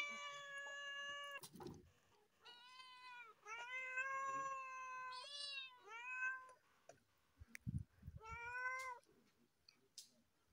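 Cats meowing loudly and repeatedly in long, drawn-out calls. One long meow opens, then a quick run of four, then a pause with a few low thumps and one last meow.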